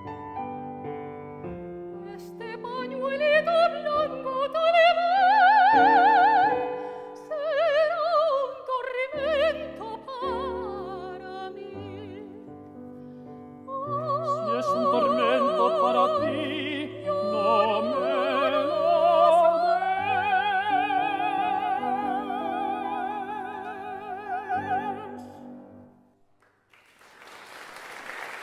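Tenor and soprano singing the closing phrases of a Spanish zarzuela duet in operatic style over piano, with wide vibrato on long held notes and a final held note together. The music stops about 26 seconds in, and applause starts just before the end.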